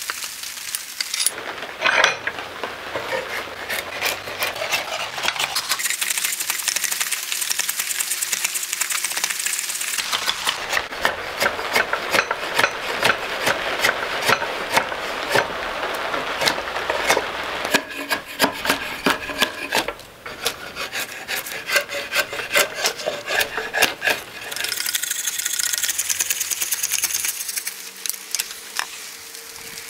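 A hand tool shaving and scraping along an ash axe handle held in a vise, in fast repeated back-and-forth strokes, with a short pause about two-thirds through.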